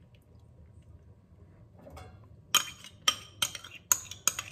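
A run of sharp clinks, about six in two seconds starting about halfway through, of a ceramic bowl and utensil knocking over a plastic blender jar as the last melted gelatin is emptied in.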